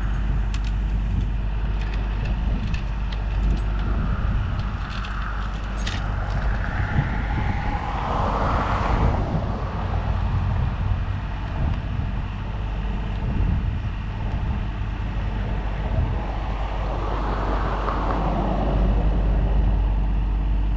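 Mini excavator's diesel engine running steadily as it hauls a steel pulling cable through the trench, with a few light clicks in the first seconds and a swell in its sound about eight seconds in and again near the end.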